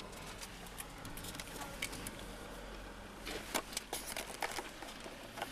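Scattered small clicks and rustles from a handheld camera being moved and gripped inside a car, thickest about three and a half seconds in, over a faint low steady hum.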